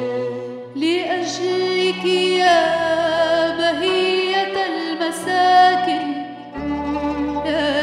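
A woman sings an Arabic hymn solo into a microphone over instrumental accompaniment. Her voice comes in about a second in, with wide vibrato, and breaks off briefly near the end before going on.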